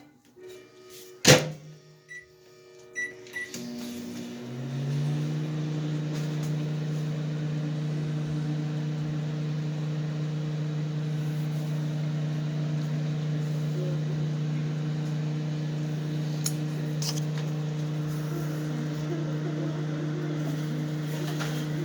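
Microwave oven being started: a sharp click, three short keypad beeps, then the oven starts running about four and a half seconds in with a steady hum.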